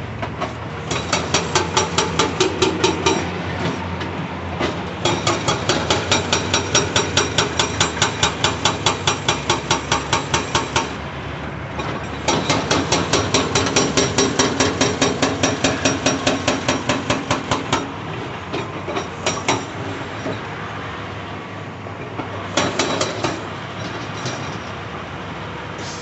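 Hydraulic breaker on a Cat 349E excavator hammering rock in rapid blows, about four or five a second, in bursts of several seconds with short pauses and a couple of brief stabs near the end, over the steady running of the excavator's diesel engine.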